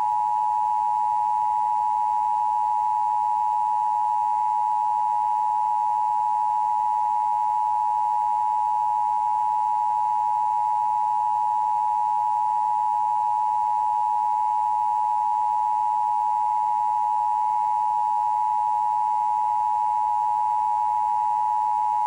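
Emergency Broadcast System attention signal: two steady sine tones (853 and 960 Hz) sounded together as one unbroken, high, slightly dissonant alert tone, broadcast during a test of the system.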